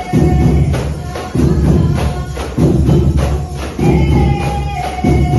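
Percussion band rehearsing, with tambourines shaking and striking over music that has a heavy low pulse about every second and a held melody line.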